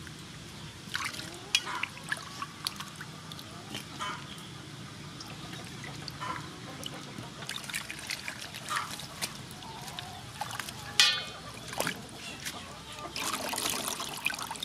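Water splashing in a steel bowl as hands rinse a bunch of enoki mushrooms, with short splashes throughout. Near the end water trickles and drips off the bunch as it is lifted out.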